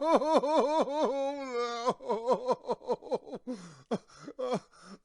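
A man crying hard: rapid, rhythmic sobs at first, a drawn-out wailing cry about a second in, then shorter broken sobs and catching breaths that grow quieter.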